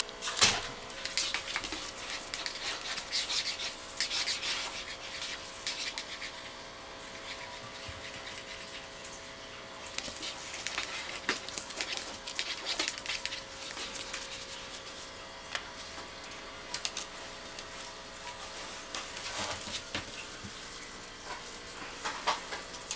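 Scratchy rubbing and scrabbling noises in irregular bursts from a Norwegian Forest Cat at play, with quieter stretches in between.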